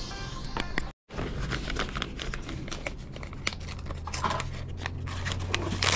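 Paper rustling and crinkling as an envelope of paperwork is handled and opened, with a sudden split-second dropout to silence about a second in.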